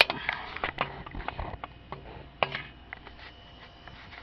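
Scattered clicks and clacks of hand tools and metal bolts being handled while fitting drive shaft flange bolts, with a sharper clack right at the start and another a little over two seconds in.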